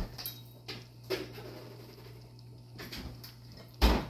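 Wooden spoon working a thick tomato sauce in a large skillet, giving a few soft scrapes and knocks, the loudest near the end. A steady low hum runs underneath.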